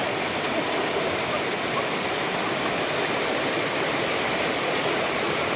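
River water rushing past in a steady, even flow.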